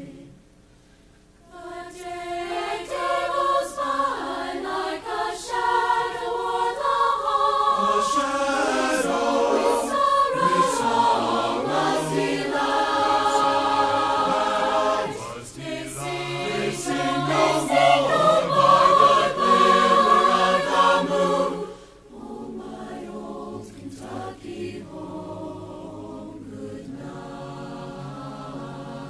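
Slow, sustained chorale music from a high-school marching band show, with a choir-like sound. It comes in after a brief quiet moment, swells to its loudest about two-thirds of the way through, then drops suddenly to a softer passage.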